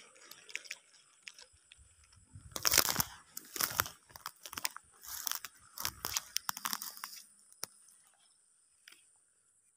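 Crunching footsteps through dry grass and straw, a step about every 0.7 seconds, starting a couple of seconds in and stopping about seven seconds in.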